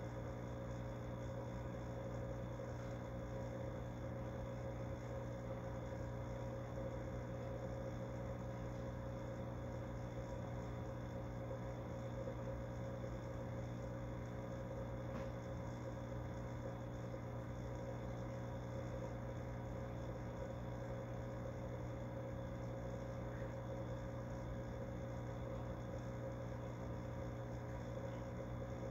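Aquarium pump motor humming steadily, a low hum with several steady higher tones over it.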